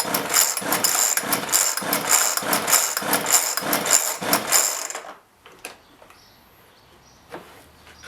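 Homelite chainsaw's recoil starter cord pulled over and over, about two pulls a second, each with a whirring, ratcheting rattle, the engine not catching. The pulling stops about five seconds in, leaving a few light clicks. The saw will not fire even with fuel poured down the intake.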